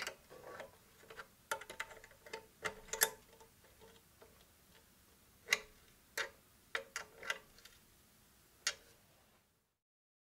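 Metal clicks and clinks of a spanner working the bolts of a bench grinder's wheel-guard bracket, a dozen or so sharp ticks with brief ringing, irregularly spaced; the grinder is not running. The sound cuts to silence near the end.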